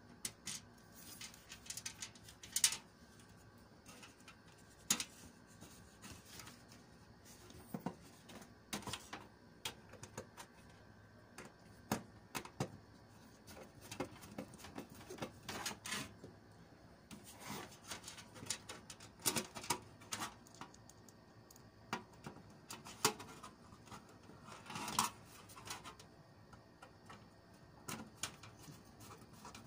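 Irregular clicks, taps and knocks of hands working on a desktop PC case and its parts, coming every second or so.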